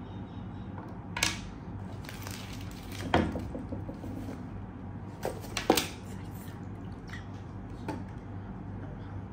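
Unboxing handling noise: a few sharp clicks and knocks from small plastic camera accessories being handled and set on the table, with a stretch of fabric rustling from a pleated cloth pouch. A steady low hum runs underneath.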